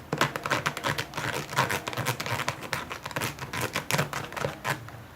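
Slime mixture of clear glue and shaving foam being stirred in a bowl: a dense, irregular run of clicks and scrapes.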